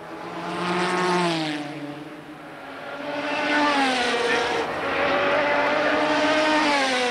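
Group C prototype race cars passing at speed, each engine note high and then dropping in pitch as the car goes by: one car about a second in, then several more in close succession from about three seconds on.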